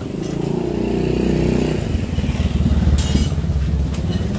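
An engine running, its sound growing deeper and louder after about two seconds, with a sharp click about three seconds in.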